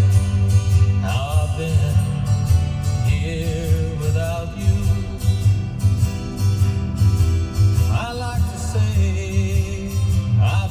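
Music: a song with a singing voice gliding between notes over a heavy, pulsing bass line.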